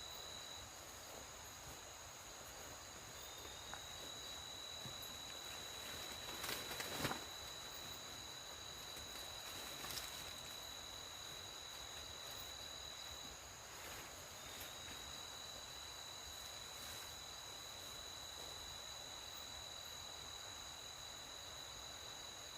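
Night insects trilling in one steady, unbroken high-pitched tone, with a second, higher steady line above it. The main trill stops briefly twice. A short louder rustle or crack comes about seven seconds in, and a small click a few seconds later.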